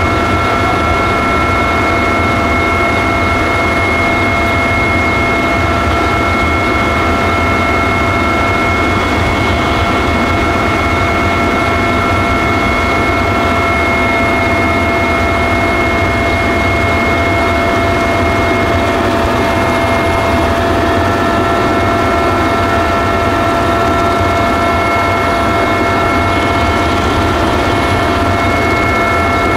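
Helicopter in flight, heard on board: a loud, steady engine and rotor noise with a constant high whine over it.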